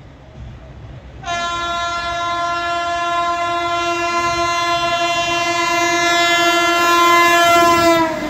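Electric locomotive's horn sounding one long blast of about seven seconds, getting louder as the express approaches at speed. The pitch drops slightly just before it stops, as the locomotive passes, and the rumble of the passing train follows.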